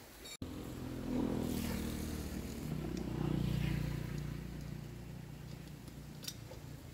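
Small engine running with a low, pulsing drone: it comes in abruptly, swells, is loudest around three to four seconds in, then eases off.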